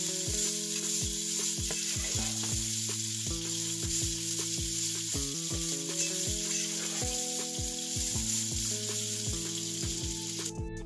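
Garlic fried rice sizzling in oil in a nonstick frying pan as it is stirred and turned with a plastic spatula, with longanisa sausages frying in a second pan. Background music with a steady beat plays underneath.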